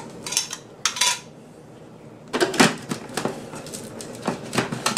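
Short plastic clicks and clatter as the clear lid is fitted and locked onto a Cuisinart food processor bowl, in two bursts in the second half, after a couple of sharp clinks in the first second. The motor is not running.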